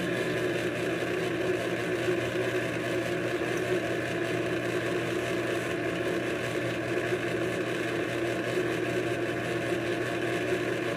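Electric kitchen mixer running at a steady speed, its motor giving an even hum while it blends the dry cake ingredients together.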